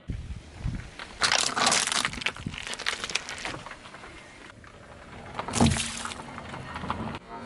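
A car tyre rolling over brittle objects, crushing them with a run of cracking and crunching from about a second in to the middle, then another sharp crack near the end.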